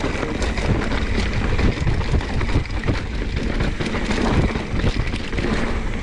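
Mountain bike descending a rough technical trail: the bike rattling and knocking over bumps, with wind noise on the microphone.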